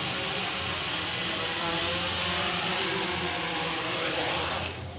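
Small quadcopter's electric motors and propellers whirring steadily with a high whine while it hovers just above the ground, cutting off abruptly near the end as it sets down.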